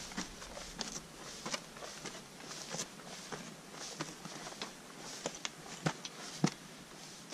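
Hiker's boots stepping along a rocky, gravelly mountain path: irregular crunches and sharp clicks on stone, roughly two a second, with the sharpest steps near the end.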